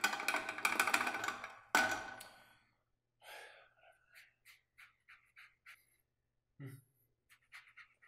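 Washing at a sink: two loud rushes of noise in the first two seconds, then soft, scattered rubs of a sponge on bare skin, and a short breathy grunt near the end.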